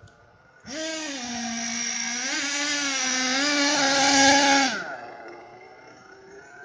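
HPI Savage 4.6 nitro RC monster truck's small two-stroke glow engine revving hard. It starts abruptly under a second in, holds a high, wavering pitch that climbs to its loudest around four seconds, then drops away sharply to a faint drone as the truck pulls off into the distance.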